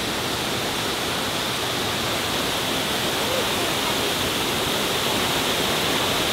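Waterfall pouring steadily: a constant, even rush of falling water.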